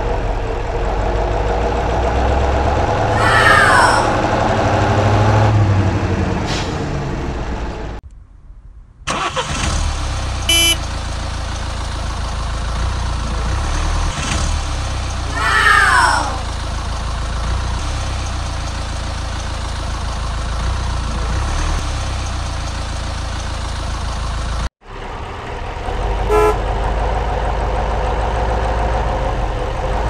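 Truck engine sound running steadily, with short horn-like toots and two falling whistle-like glides. The sound cuts out briefly twice.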